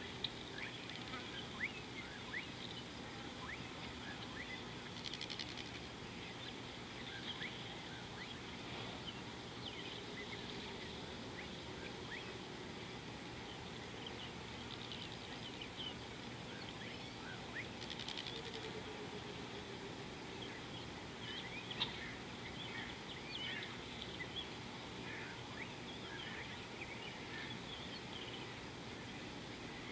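Outdoor bush ambience: many short bird chirps and calls scattered over a steady background hiss, with a couple of brief rustles.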